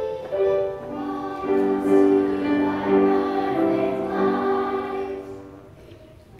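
A young girl singing into a microphone in long, held notes, the song dying away near the end.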